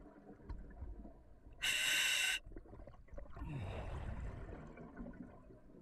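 A diver breathing underwater through the regulator of an OTS Guardian full face mask. About two seconds in comes a short, loud hiss as a breath is drawn through the demand valve. About a second later comes a longer, softer exhale bubbling out through the exhaust.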